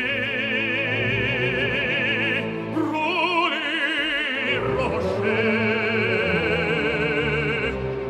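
Operatic tenor singing with wide vibrato over an orchestra: a long held note, then a brief phrase that moves between notes about three seconds in, then another long held note that ends just before the close.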